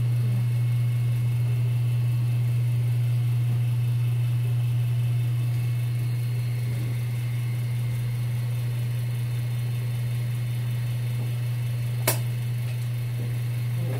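Steady low machinery hum, with a single sharp click about twelve seconds in.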